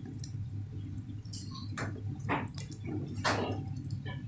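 Faint scattered rustles and small ticks of handling a network cable as its wires are pushed into an RJ45 plug, over a steady low hum.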